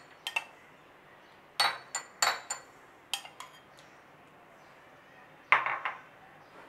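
Metal spoon clinking against a glass bowl and glass dessert goblets while spooning mango purée: a few sharp, ringing clinks in clusters, the loudest a little after five seconds in.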